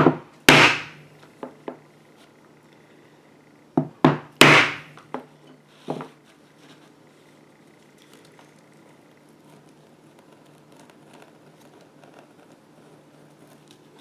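Mallet blows on a metal punch driven into leather: two groups of strikes about four seconds apart, each a couple of light taps followed by one heavy blow, with a few smaller knocks after the second. After that only faint handling sounds.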